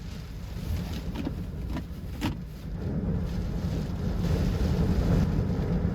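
Strong wind gusts howling around and buffeting the truck's camper shell, a low rumble that builds louder in the second half. A few light knocks sound between about one and two seconds in.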